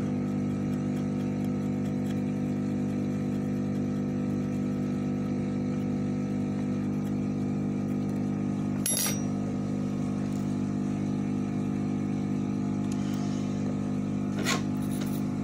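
A steady, even machine hum from electrical bench equipment, with a short click about halfway through and another near the end.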